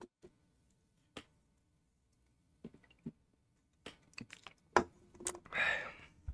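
Faint scattered clicks, with a cluster of them from about four seconds in, then a short breathy hiss near the end.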